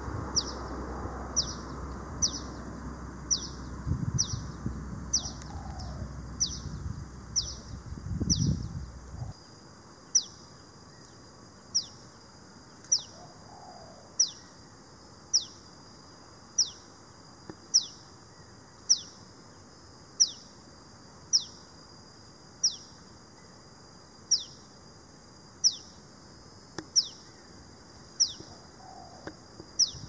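Common tailorbird calling: a loud, sharp, falling note repeated over and over at a steady pace, quicker in the first few seconds and then about one a second.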